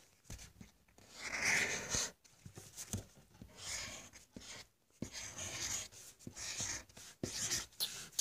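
Scribbling on paper: short scratchy drawing strokes with brief pauses between them.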